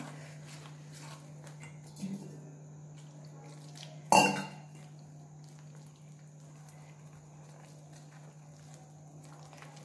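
Steel spoon stirring thick besan batter in a stainless steel bowl, a soft, faint scraping, with one sharp metallic clink of steel utensils about four seconds in.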